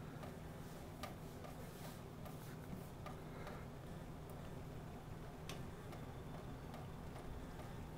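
Kittens lapping water from a thin trickle off a kitchen faucet: faint, irregular wet clicks over a low steady hum.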